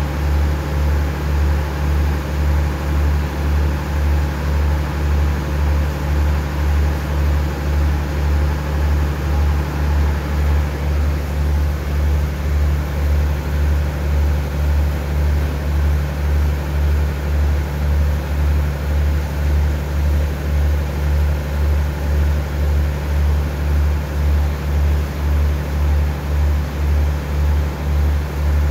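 Diesel engine of a stopped passenger train idling at the platform: a steady low drone with a regular throb a little faster than once a second.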